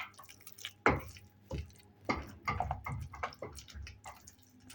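Cooking utensil knocking and scraping against a pot of mashed beans on the stove: a string of irregular knocks and taps, the loudest about a second in.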